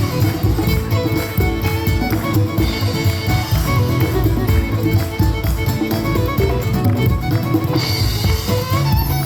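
Celtic folk band playing live, a fiddle carrying the tune over a steady beat.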